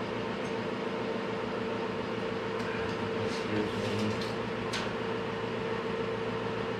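Steady machine hum with a constant mid-pitched tone, like a running fan or appliance motor. A few light clicks and rustles come through in the middle as a tape measure is pulled out across the pine boards.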